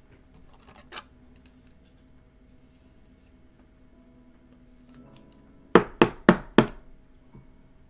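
Four quick, sharp taps, about a third of a second apart, from a hand knocking cards or a pack against the tabletop, with a faint single click about a second in.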